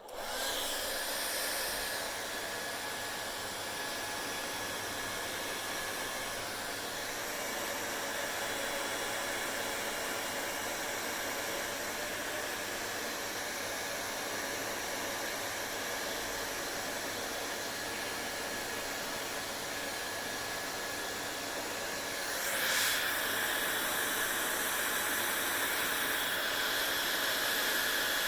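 Hair dryer running, a steady rush of air with a faint whine in it, starting right at the outset. About 22 seconds in it gets a little louder and brighter.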